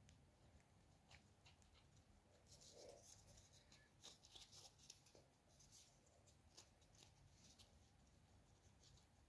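Faint scratching of a small paintbrush spreading glue over cardboard, in short, irregular strokes.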